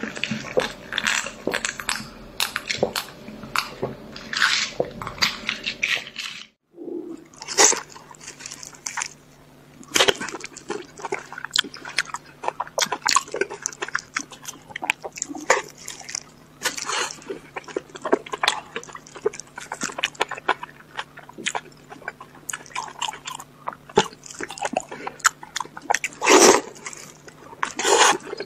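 Close-miked eating: crushed ice crunched in quick crackly bites, then after a brief break, wet chewing and lip-smacking on a large soft sausage, with a few loud smacks near the end.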